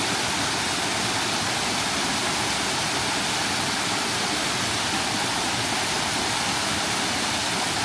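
Waterfall cascading down shale rock walls: a steady, even rush of falling water.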